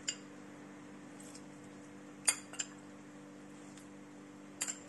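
Metal spoon clinking against glass, a few short sharp clinks: two close together about halfway through and two near the end, as spoonfuls of hot water are added to the mixture in a glass bowl.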